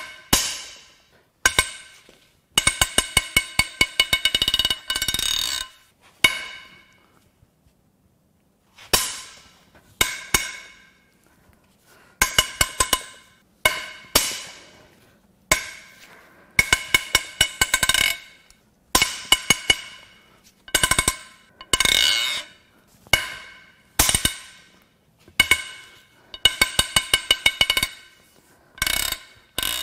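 Large 3/4-inch-drive ratchet clicking in quick runs as it is swung back, between single sharp metallic cracks that ring as very tight cylinder-head bolts break loose on a 3.0 L Duramax LM2 diesel inline-six.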